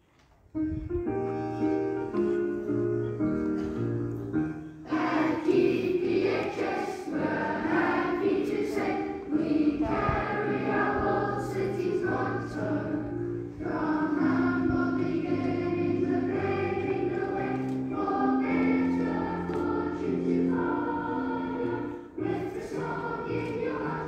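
School song starting up: a short instrumental introduction, then a choir of voices comes in about five seconds in and sings with the accompaniment.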